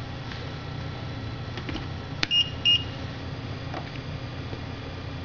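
A button click, then two short high electronic beeps about a third of a second apart from the BL T&K control unit, the unit confirming a step of resetting its knee-control setting.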